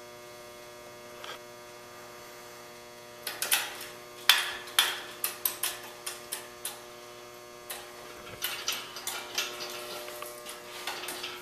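Sharp, irregular metallic clicks and clinks, two or three a second, from the steel parts of an engine hoist being handled at the hydraulic ram during assembly; they begin about three seconds in. Under them runs a steady electrical hum.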